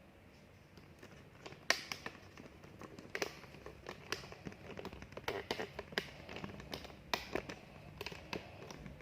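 Irregular sharp taps and clicks, about a dozen knocks spread over several seconds, the loudest about two seconds in.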